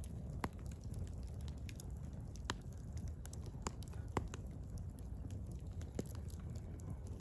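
Firewood burning: a steady low rumble of flames with irregular crackles and sharp pops from the wood, the louder pops scattered a second or two apart.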